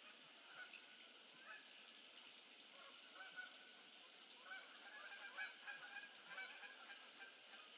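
Faint, distant calls of a flock of birds: many short calls overlapping over a steady hiss, busiest in the second half.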